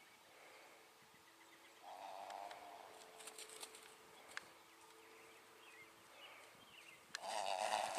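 A yearling Arabian colt snorting: two loud, rough blows through the nose, about two seconds in and again near the end, each lasting about a second. A single sharp knock comes midway between them.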